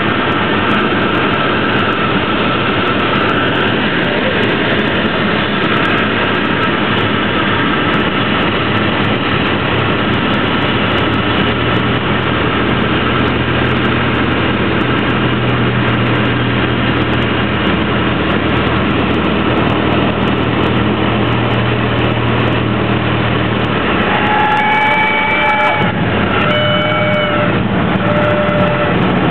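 Cessna light aircraft's piston engine and propeller droning steadily, heard inside the cabin on final approach, with the engine note changing a little before halfway and again near the end as power comes back. In the last few seconds, short high whistling tones sound over it, some bending in pitch.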